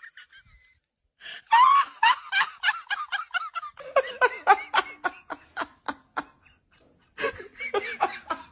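A person laughing in quick, repeated bursts; the laughter stops briefly, then breaks out again near the end.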